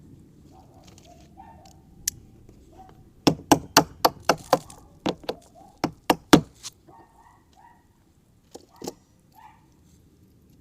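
A quick run of about ten sharp metallic knocks and clinks, a few seconds in, then two more near the end: bolts and metal parts of a garden dump cart being handled and fitted during assembly.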